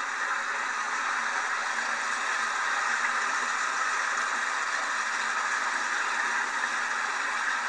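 A steady hiss with no clear calls or knocks standing out.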